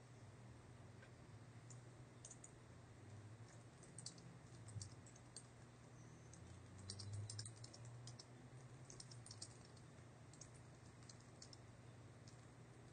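Faint, irregular typing on a computer keyboard: scattered runs of soft keystrokes with short pauses, over a low steady hum.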